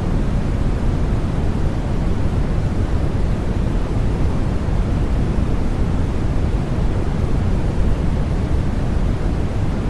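Steady, unbroken white noise for baby sleep, deep and full in the bass with a soft hiss on top, without any change.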